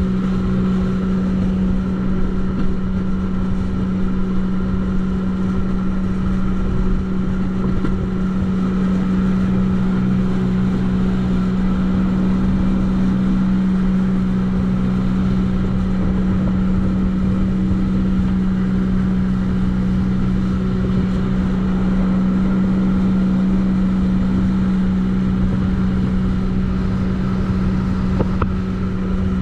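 Jet ski engine running at a steady speed: a constant-pitched drone over a broad rushing noise.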